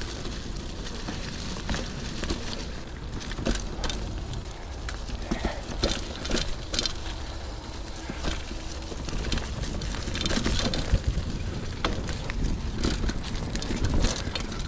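Trek Marlin 7 mountain bike riding over a dirt trail, with irregular clicks and rattles from the bike over bumps and a steady low rumble of wind on the microphone.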